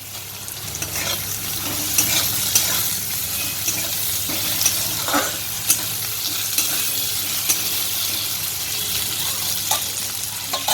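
Chopped tomato frying with onions in hot mustard oil in a kadai: a steady sizzle that swells over the first second or two, while it is stirred, with scattered clicks and scrapes against the pan.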